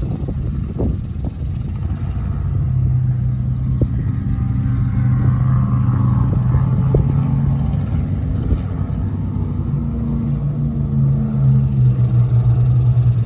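Deep, steady engine rumble, a low drone that swells a little near the end.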